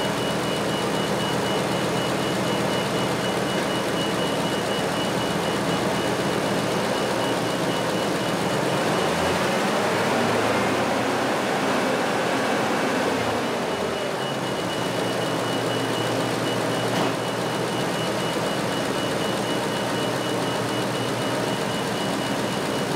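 Pickup truck's engine running with the headlights, wipers and other electrical loads switched on, revved up for several seconds during a charging-system test in which the alternator is charging normally. A thin steady high tone runs over it, dropping out for a few seconds in the middle.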